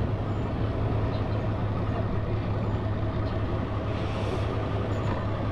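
Van engine running under load as it tries to pull a boat trailer up the ramp, its drive tires spinning and losing traction.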